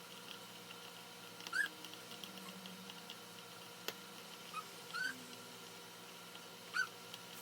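Four short, high squeaks from an animal, each rising and falling in pitch, over a faint steady hum, with a single sharp click near the middle.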